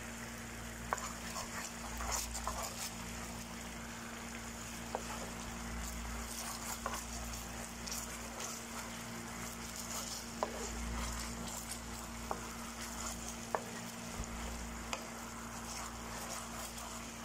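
Thick sauce bubbling and sizzling in a non-stick frying pan while a wooden spatula stirs it, with a few isolated sharp ticks.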